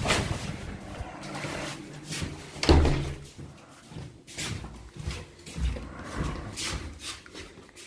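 Irregular knocks and clatter of things being handled and set down, with one heavy thud about three seconds in.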